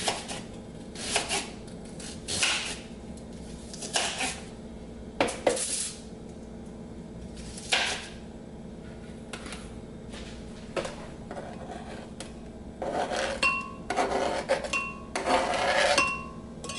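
Kitchen knife slicing an onion on a plastic cutting board, a sharp cut every second or two. Near the end the onion is scraped off the board with the knife into a glass blender jar, with a busier scraping and brief glassy ringing.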